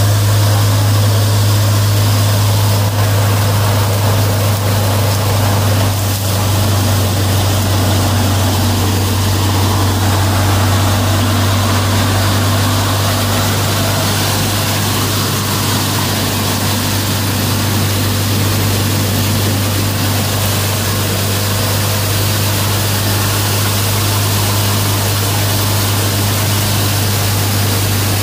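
Tractor-powered PUNNI multi-crop thresher running under load, driven by a Kubota MU5501 diesel tractor. It keeps up a loud, steady mechanical hum with a constant low drone.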